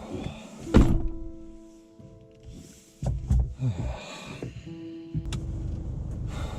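Slow background music with long held notes, and a single loud thump just under a second in.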